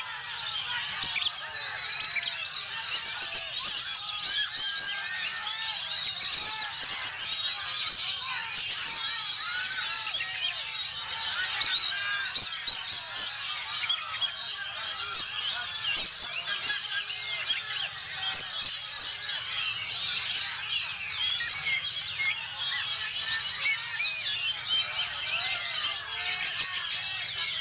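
Oriental magpie-robins (kacer) singing in a contest class, many birds at once: a dense, unbroken chorus of rapid overlapping chirps, whistles and trills.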